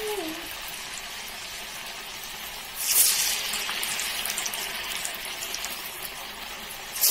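Raw-banana masala vadas deep-frying in hot oil: a steady sizzle with fine crackling. The sizzle flares up loudly about three seconds in and again near the end, as more patties go into the oil.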